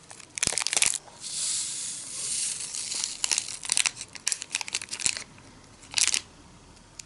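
Small plastic powder sachet from a DIY candy kit crinkling as it is handled and torn open, with a steady hiss lasting about a second and a half early on, then more scattered crinkling.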